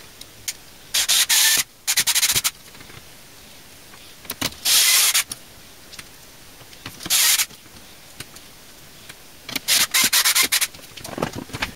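Short rasping bursts, about five, from fan screws being driven through the plastic frame of a PC's rear exhaust fan and into the steel case.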